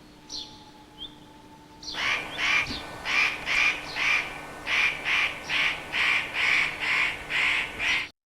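A bird calling over and over, about two calls a second, starting about two seconds in after a few faint chirps.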